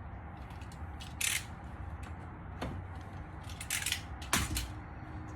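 Hand cutters snipping something, a few short sharp snips spread over several seconds, over a faint steady low hum.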